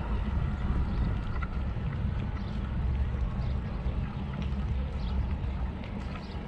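Wind buffeting the microphone: a low, fluttering rumble with a rush of noise above it, easing slightly near the end.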